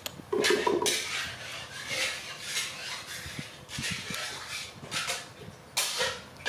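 Irregular scraping and rubbing noises with light clatter, like hard household objects being handled and dragged, ending in a sharper, louder scrape about six seconds in.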